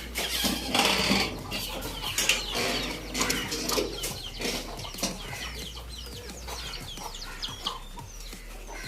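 Chickens clucking in a poultry house, with many short, high, falling chirps. Knocks and rustling come in the first second or two.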